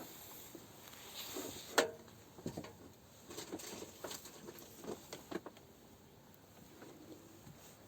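Scattered light clicks and taps of objects being handled, with one sharper knock just under two seconds in and thinner, fainter ticks later on.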